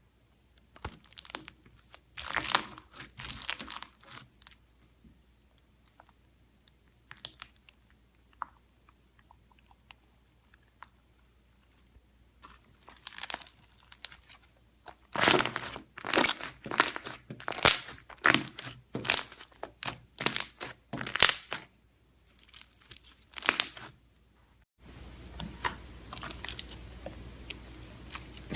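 Slime being pressed and squeezed, giving irregular crackling, crunching pops in quick clusters. A steady background hiss comes in near the end.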